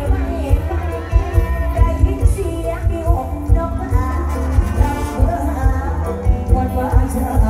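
Live band music amplified through a stage PA, a woman singing over a steady, heavy kick-drum beat.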